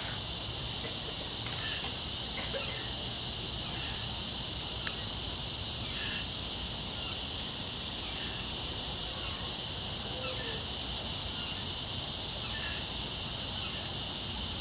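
Insects chirring in a steady, high-pitched chorus, with faint short chirps every second or two and a single sharp click about five seconds in.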